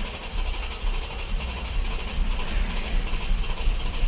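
Jeep Grand Cherokee 3.6 L V6 cranking on the starter without catching: a rhythmic churning that keeps going, the engine's crank-no-start condition.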